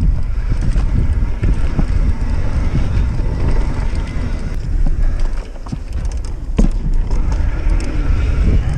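Wind buffeting the microphone of a chest-mounted camera as a Felt Decree mountain bike descends fast on a dirt trail, with tyre rumble and scattered clicks and rattles from the bike. A short lull a little past halfway ends in one loud knock.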